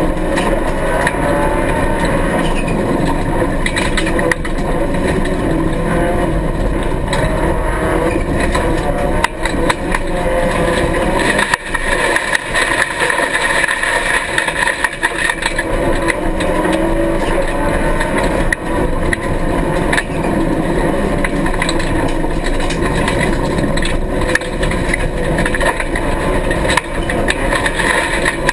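Rally car engine heard from inside the cabin, working hard on a dirt stage, its revs repeatedly rising and falling as the driver accelerates, lifts and shifts. Frequent short knocks and rattles run through it.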